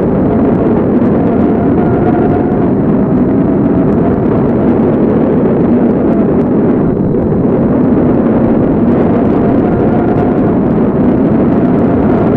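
Tornado wind sound: a loud, steady rushing roar of wind, low and full, with a faint wavering whistle above it.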